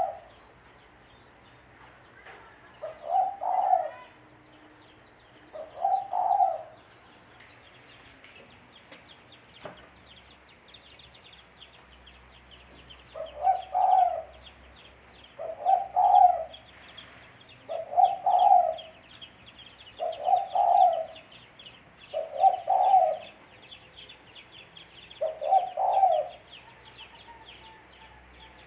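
Spotted dove (tekukur) cooing: eight short coo phrases of about a second each, two early on, then after a pause of about seven seconds one every two to three seconds. Faint high chirping of small birds runs behind the coos in the second half.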